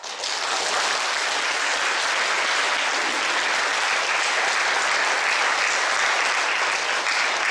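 Audience applause, starting suddenly just after a song's final piano notes and holding steady throughout.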